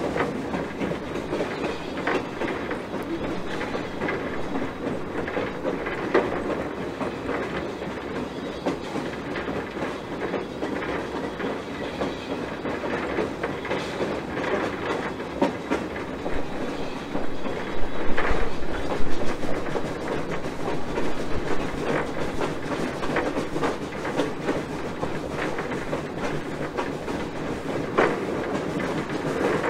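Wheels of a small 1920 steam switching locomotive rolling along the track, heard from its front pilot. A steady rumble with irregular clicks and clanks over the rail joints, loudest about two-thirds of the way through.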